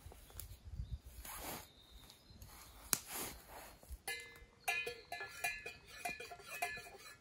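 Camp gear being handled: rustling and knocking, then light metallic clinking and ringing from about four seconds in.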